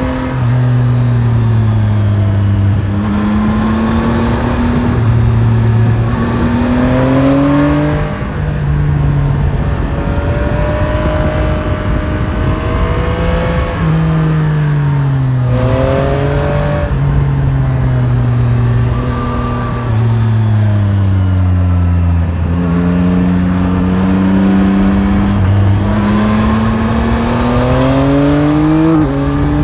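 Yamaha Tracer 9 GT's CP3 three-cylinder engine under way, revving up and easing off again and again as the bike is ridden along a winding road, with sharp drops in pitch at gear changes and slower falls when rolling off the throttle. Wind rush lies under the engine throughout.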